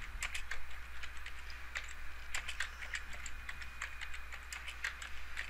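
Typing on a computer keyboard: irregular runs of quick keystroke clicks.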